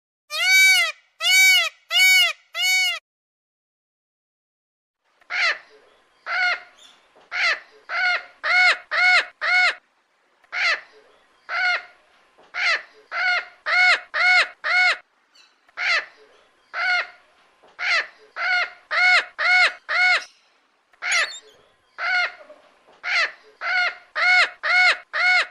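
A male Indian peafowl gives four loud, rising-and-falling calls. After about two seconds' pause, a long run of similar loud bird calls follows, many in quick groups of three to five.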